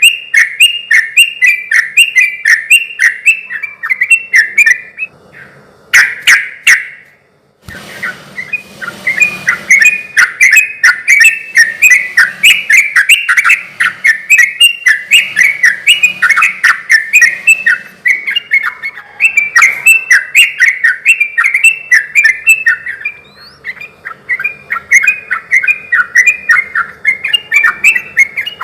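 Yellow-vented bulbul (trucukan) singing a long, fast run of repeated chirping notes, with a short break about a fifth of the way in before the song picks up again.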